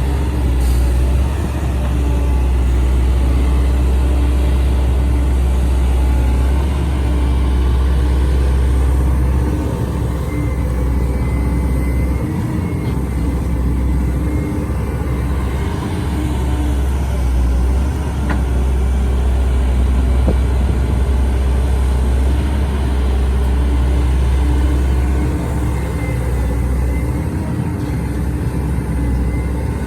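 Heavy diesel engine of construction machinery running steadily, with a deep low drone and a faint steady whine above it.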